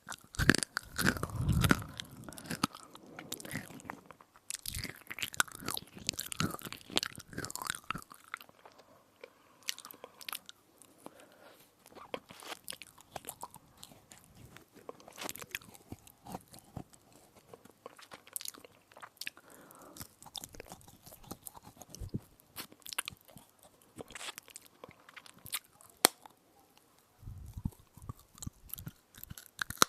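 Close-miked biting and chewing of a crisp edible spoon: crunching and crackling between the teeth. It is dense and louder for the first several seconds, then eases into sparser, quieter crunches.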